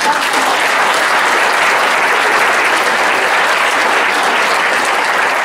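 Audience applauding in a large hall: steady, sustained clapping from many hands that starts sharply and holds at an even level.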